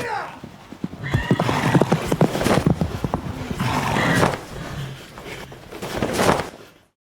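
Horses neighing several times over clattering hoofbeats, cutting off abruptly just before the end.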